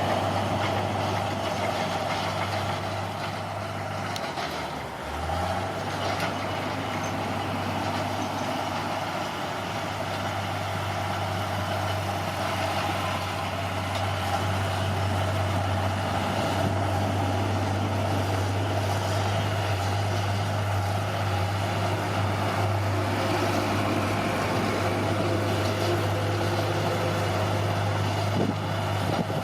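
Heavy diesel engine of an earthmoving machine running steadily under work, with a brief dip in its note about five seconds in.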